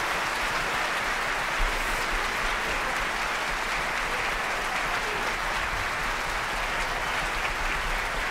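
Theatre audience applauding steadily and densely.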